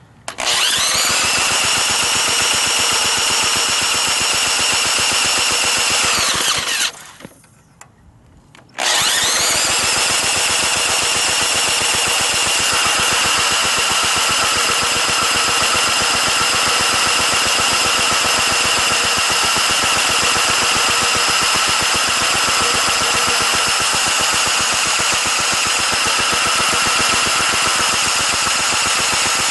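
Electric power tool's motor whining as it spins an antique 5 HP Briggs and Stratton engine over, cranking it without the engine catching. The whine rises as it spins up, stops about six and a half seconds in, spins up again about two seconds later and then runs steadily.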